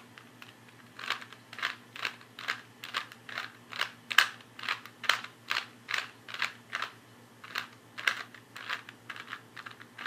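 Plastic Rubik's Cube layers being twisted by hand: a run of quick clacking turns, about two a second, with a couple of short pauses.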